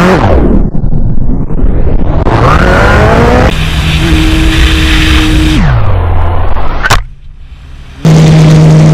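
Sport motorcycle engines heard from onboard at speed: the revs fall right at the start, climb again a couple of seconds in, hold and then drop off. Abrupt cuts between clips, with a brief quieter stretch near the end before the loud engine returns.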